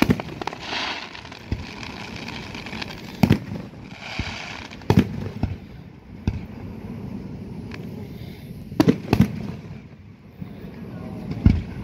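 Aerial firework shells bursting overhead: sharp booms every few seconds, two in quick succession about nine seconds in, with stretches of crackling from the bursting stars in between.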